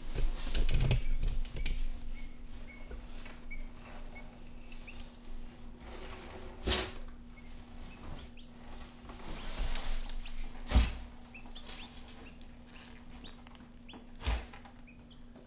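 Quail chicks peeping in short, faint, repeated calls, mostly in the first few seconds, over a steady low hum. Several sharp knocks and scuffs ring out as the Argus monitor's claws and body hit the hard bathtub surface.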